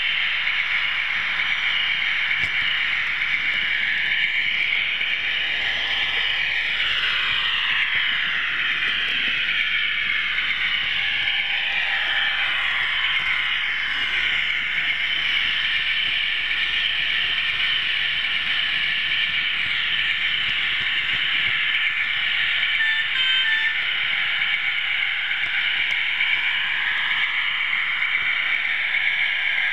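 OO gauge model train running along the track: a steady rattling hiss of small wheels on rail, with whines that slide up and down in pitch.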